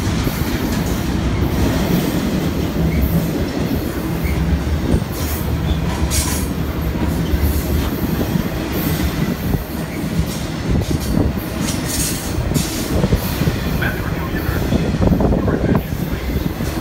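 Double-stack intermodal freight cars rolling past close by: a steady heavy rumble and clatter of steel wheels on rail, with short high-pitched wheel squeals now and then.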